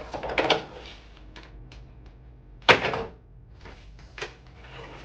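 Knocks and clicks of hard objects being handled and set down during the dismantling of a desk setup. A cluster of clatter at the start, a few light clicks, one sharp loud knock about two and a half seconds in, and another lighter knock near the end.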